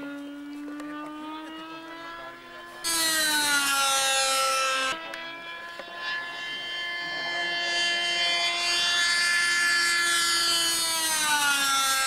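Ducted-fan engine of a radio-controlled model jet running at high power: a steady, piercing whine with many overtones. It jumps abruptly louder about three seconds in, and its pitch drops near the end as the model passes.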